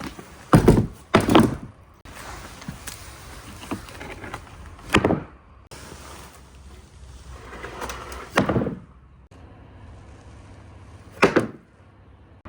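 Marbles running through a water-flow marble run over a steady rushing background. Five loud knocks come as marbles drop and strike the track: two close together near the start, then roughly one every three seconds.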